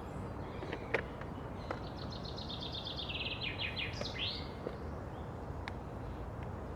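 A songbird singing one phrase about two seconds in: a fast trill of rapidly repeated notes that drops slightly in pitch and ends in a short rising flourish. A few faint clicks come before and after it.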